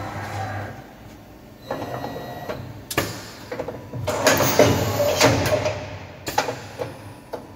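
Takisawa VMC-40 CNC vertical machining centre in operation: intermittent mechanical whirring and rattling, with sharp clunks about three seconds in and again near the end, and a louder noisy stretch in the middle.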